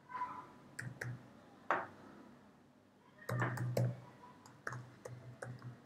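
Computer keyboard typing: soft, irregular keystroke clicks, with a quicker run of keys about three seconds in.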